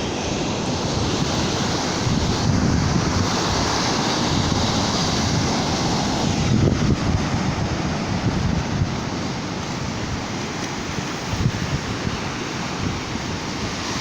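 Ocean surf breaking and washing steadily, with wind buffeting the microphone in a low, uneven rumble.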